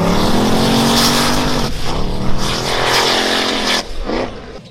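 Racing car engine accelerating hard. Its pitch climbs, drops at a gear change about two seconds in, and climbs again. The engine note then cuts off sharply near the end, followed by a brief blip.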